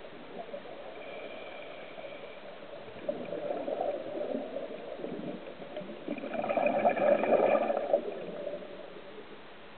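Scuba breathing heard underwater: hiss from a diver's regulator and gurgling exhaled bubbles. It swells twice, loudest from about six to eight seconds in.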